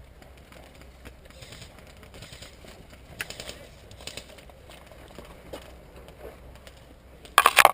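Faint rustling and scattered snaps of brush and twigs underfoot, then a loud quick run of sharp clicks and cracks near the end.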